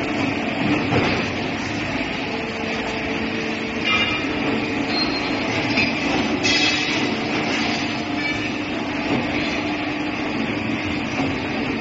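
CNC tube bending machine running as it bends a square aluminium profile tube: a steady machine hum, with brief high-pitched squeals about four seconds in and again a couple of seconds later.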